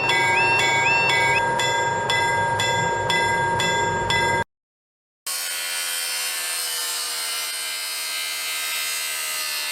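Cartoon sound effects: a railroad crossing signal dinging about twice a second over a steady tone, which cuts off suddenly about halfway through. After a short silence, a steady noisy mechanical running sound follows.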